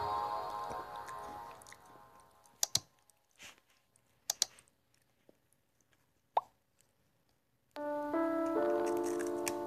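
A sparkling chime from a meme video's soundtrack fading away, then near silence broken by a few soft clicks and a short pop, and a synth music tune starting about two seconds before the end.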